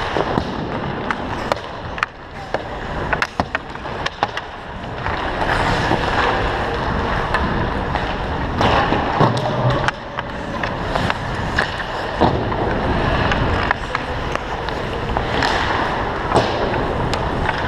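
Hockey skate blades carving and scraping on the ice right at the microphone, with many sharp clacks of hockey sticks striking pucks throughout.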